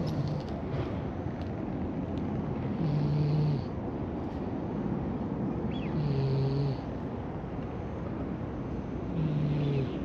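An orange-and-white cat snoring loudly in its sleep: three snores about three seconds apart, each under a second long, over a steady background hiss.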